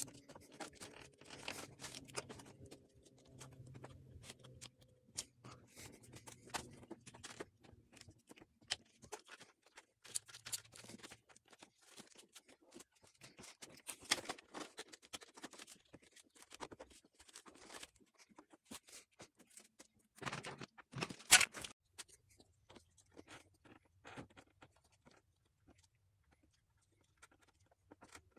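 Quiet, scattered clicks, scrapes and rustles of new spark plug wires being pushed and routed between brackets and hoses on the engine, with a louder cluster of knocks about twenty seconds in.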